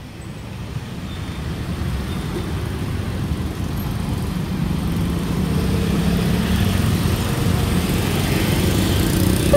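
Road traffic: motor scooters and cars driving past close by, a steady engine and tyre noise that grows slowly louder.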